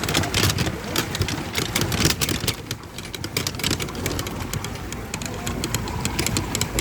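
Street traffic: vehicle engines running under a dense, steady wash of noise that is full of short clicks.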